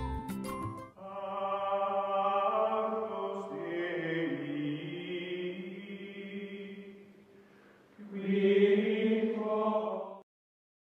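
Outro music of sustained choir-like chanting voices in long held chords. One phrase fades out, a second louder phrase begins about eight seconds in, and the sound cuts off suddenly near the end.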